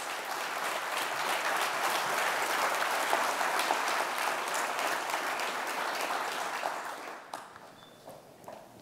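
Audience applauding, dying away to a few scattered claps near the end.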